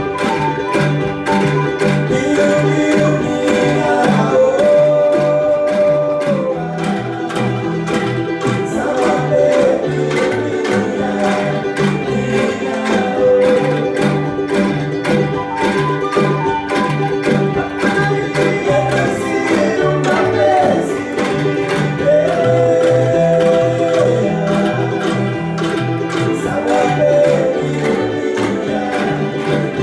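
Angklung ensemble playing a song: shaken bamboo tubes give rattling, trembling notes, with a steady pattern of low notes under held melody notes.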